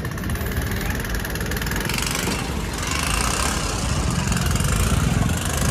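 A vehicle's engine running while on the move, with a steady rush of wind and road noise that grows slightly louder.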